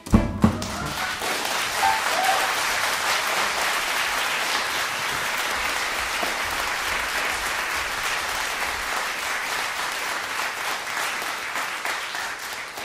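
Live concert audience applauding steadily after a song ends, the applause dying away near the end.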